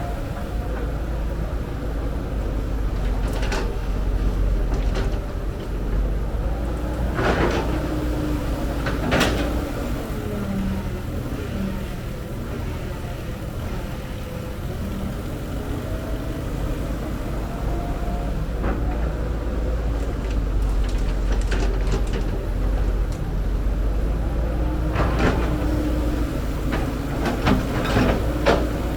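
Cat 312B excavator's diesel engine running steadily, with sharp metallic clanks and scrapes from the bucket and arm in clusters a few seconds in and again near the end.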